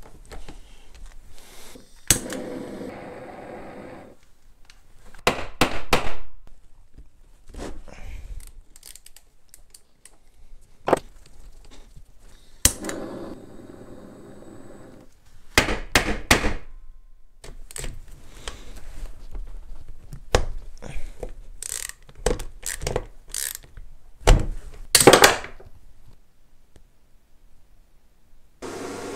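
Sharp metallic knocks and clicks of hand tools working a stuck screw on the aluminium crankcase of a small pit bike engine, a dozen or more irregular strikes. Partway through, a small gas torch hisses for a couple of seconds while heating the seized screw to free it.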